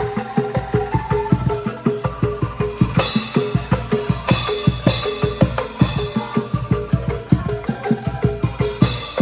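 Angklung ensemble playing a song: shaken bamboo tones over a steady, quick drum beat, with bright chords coming in about three seconds in.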